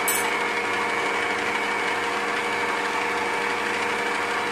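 Electric stand mixer running steadily with a constant hum and whine, its dough hook turning through dry flour in a stainless steel bowl.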